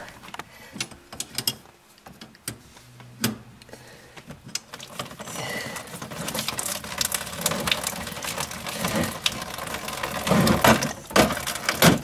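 Hands working the hot-water shut-off valve and braided supply hose under a kitchen sink: scattered clicks, rattles and knocks, with a couple of louder knocks near the end.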